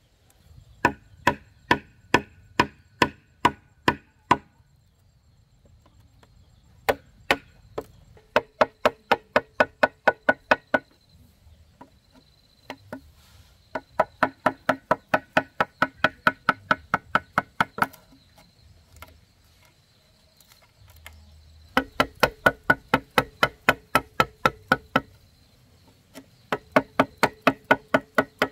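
Quick runs of chopping or whacking strikes on wood, several a second, each knock ringing with a hollow tone; five runs of a few seconds each, with short pauses between.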